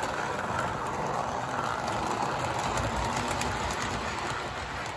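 Model electric train, a New Haven locomotive pulling streamlined passenger cars, running past on the layout's track: a steady rumble and clatter of its wheels and motor.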